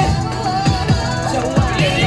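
K-pop dance track played loud, with deep bass-drum hits that drop in pitch about twice a second under a synth melody.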